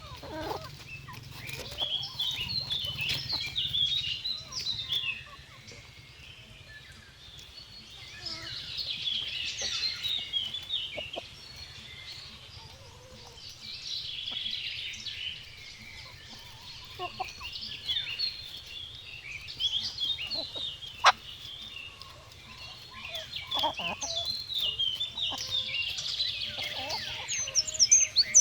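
Birds calling in repeated chattering phrases of many quick notes, each lasting a few seconds with short pauses between, over a faint steady low hum. A single sharp click about two-thirds of the way through.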